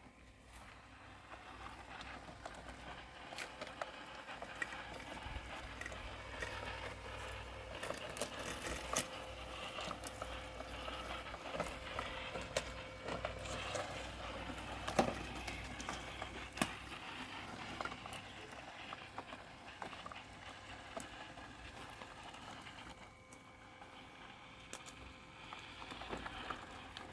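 Parkside robotic lawn mower running: a steady motor hum with a constant whine and many scattered clicks and crackles, a little quieter near the end.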